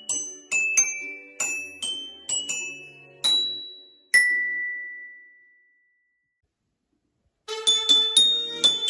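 Tuned metal percussion, bells or metallophone, played by an ensemble: a quick run of struck, ringing notes ends on one long note that rings out and fades. After about two seconds of silence, a new fast passage of struck notes begins.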